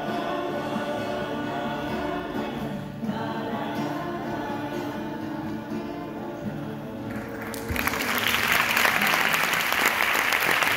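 A mixed group of voices sings to strummed acoustic guitars. About seven and a half seconds in, the singing stops and applause breaks out, louder than the singing.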